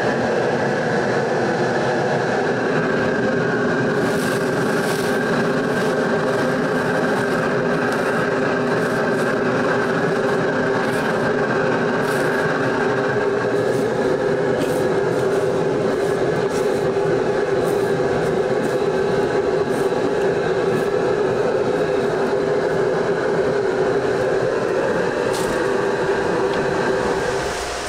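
Steady, loud roar of a stove burner under a large pot of boiling water, with a few faint clinks of the steel ladle against the pot.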